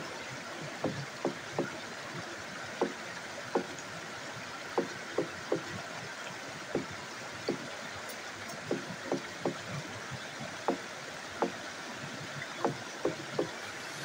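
Steady rush of a small stream running over rocks, with irregular short clicks and smacks of eating, roughly one or two a second.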